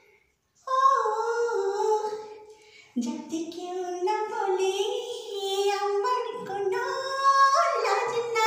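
A woman singing unaccompanied in a high voice, holding and sliding between notes, with a brief break just after the start.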